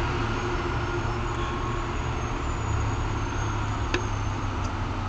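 Steady low hum of motor vehicle traffic, with a single light click about four seconds in.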